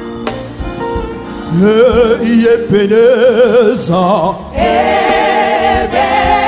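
Live gospel music from a band with voices. A male lead voice comes in about a second and a half in with a wavering, ornamented line, and after a short break near the middle several voices hold a sustained chord.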